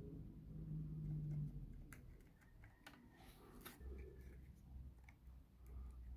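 Faint clicks and taps of small laser-cut plywood model parts being handled and pressed into place, scattered irregularly after a low hum in the first second and a half.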